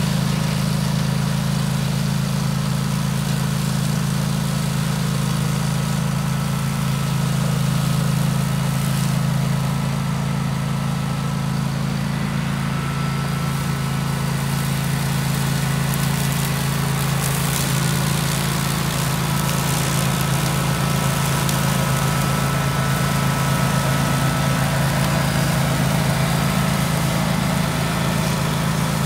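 Kawasaki engine of a DR brush cutter running steadily, on a newly replaced carburetor with its idle mixture richened.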